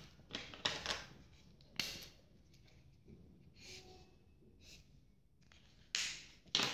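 Felt-tip highlighter and hand scratching and rustling on sheets of paper: a scatter of short soft strokes, the louder ones just after the start, about two seconds in and near the end.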